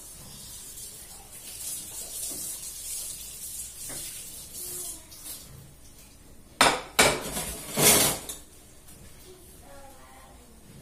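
Washing dishes at a kitchen sink: tap water running onto a plate being rinsed, then plates clattering, with a few loud clanks about two-thirds of the way through.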